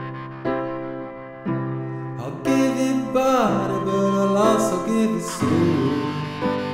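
Music: a slow song with notes struck about once a second, and a louder passage in the middle where a pitch slides downward.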